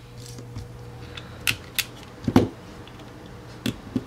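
Small sharp clicks of a Glock pistol's trigger parts being fitted into the polymer frame as a replacement trigger bar is dropped in: about six separate clicks, the loudest a little past two seconds in, over a faint steady hum.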